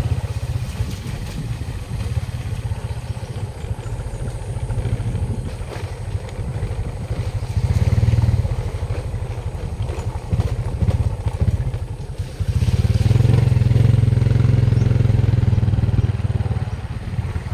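Motorcycle engine running during a ride, a steady low rumble that swells louder about eight seconds in and again for several seconds after about twelve seconds.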